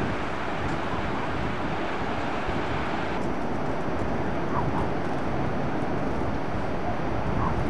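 Heavy storm surf breaking on a beach, mixed with strong wind buffeting the microphone: a steady, dense rushing noise whose upper hiss thins out about three seconds in.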